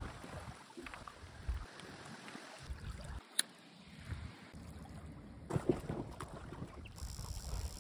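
Wind buffeting the microphone in uneven gusts, with a sharp click about three and a half seconds in and a short cluster of knocks near six seconds.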